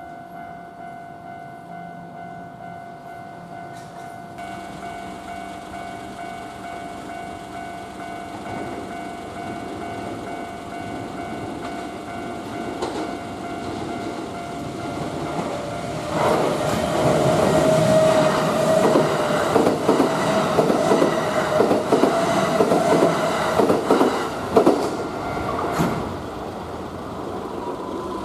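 Level-crossing alarm ringing steadily while an electric train approaches, growing louder, and passes close by from about halfway through, its wheels clacking over the rail joints. The train noise eases off near the end.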